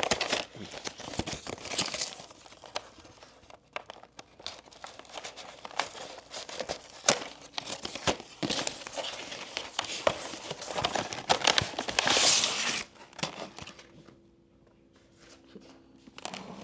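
Cardboard and clear plastic packaging of a Pokémon card collection box being handled and opened: repeated rustling, crinkling and small clicks as the flaps are worked and the plastic tray is pulled out, with one louder, longer rustle about twelve seconds in, then a short quieter spell.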